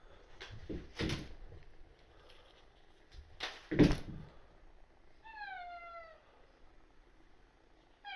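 Two brief noisy knocks, the second the louder, then a tabby cat meows once, a single call that falls in pitch.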